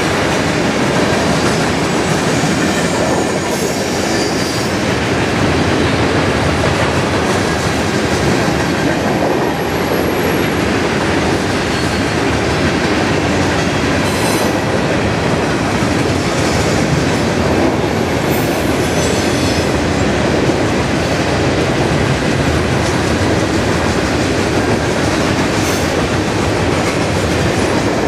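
Norfolk Southern mixed freight train rolling past at close range: a loud, steady rumble of steel wheels on the rails with occasional sharp clicks from the cars. About ten seconds in, a brief thin high whine, like wheel squeal, sounds over the rumble.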